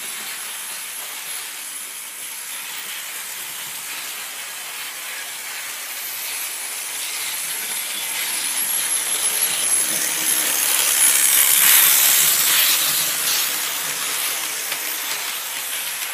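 Märklin model steam train running along the track: a steady hiss that grows louder as the locomotive and coaches pass close by, loudest about twelve seconds in, then fading.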